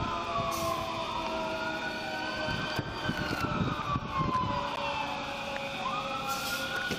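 Emergency vehicle sirens wailing, several at once, their pitches slowly rising and falling and overlapping.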